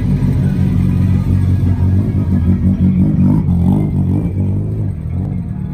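Toyota AE86 Sprinter Trueno's engine running loud at low revs as the car drives slowly past, with a brief rise in pitch about three seconds in; the sound eases off as it moves away near the end.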